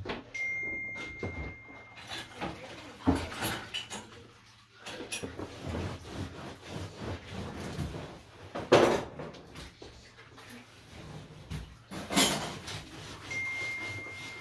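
Household cleaning noises: cloth rubbing and wiping with irregular knocks, and three louder clatters about three, nine and twelve seconds in. A thin steady high tone sounds briefly near the start and again near the end.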